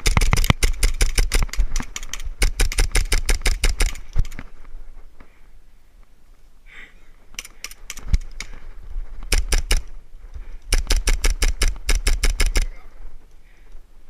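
Airsoft electric guns firing on full auto as suppressing fire: fast, even strings of clicks in about five bursts, the longest at the start and near the end.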